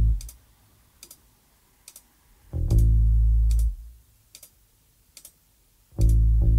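Sparse background music: deep notes that ring for about a second each, one fading just after the start, one about two and a half seconds in and one near the end, with faint ticks in the gaps between.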